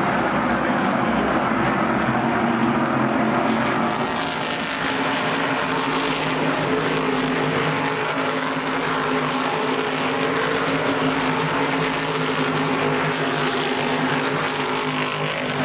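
A field of NASCAR Whelen Modified race cars' V8 engines running together as they circle the track, a steady, loud blend of engine tones. The sound turns brighter and hissier about four seconds in.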